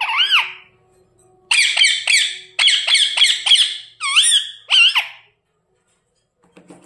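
Pet parrot calling: one short squawk at the start, then from about a second and a half in a rapid run of shrill chirps and squawks that sweep up and down in pitch, stopping about five seconds in.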